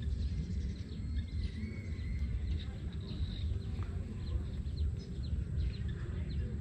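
Outdoor ambience: wind rumbling on the microphone, with faint, scattered bird chirps and a thin whistle-like call.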